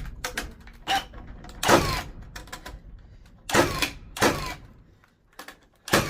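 A Milwaukee cordless power tool, powered by a DeWalt battery through an adapter, run in four short trigger bursts, each winding down in pitch as it stops: the adapter is working.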